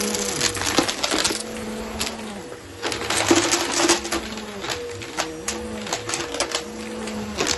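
Bissell Helix upright vacuum cleaner running with a steady motor hum while it is pushed back and forth over carpet; its note rises and falls with each stroke. Bits of debris click and rattle as they are sucked up.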